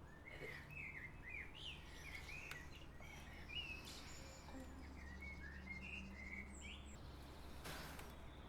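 Songbirds chirping and singing in short high notes over a steady low background hum, with a brief rushing noise near the end.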